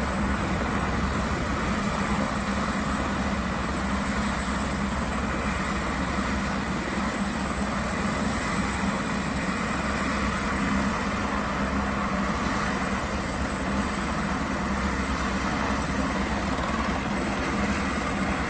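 Helicopter on the ground with its turbine engine and rotor running steadily at idle, a constant whine over a low rotor hum.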